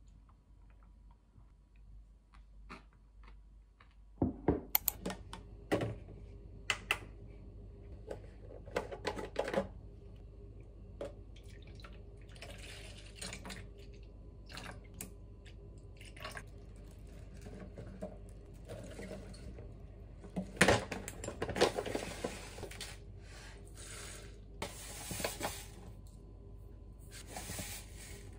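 Kitchen prep sounds: containers knocking and clicking on a countertop, soy milk poured from a carton into a plastic container, and a resealable bag rustling as seeds are scooped out.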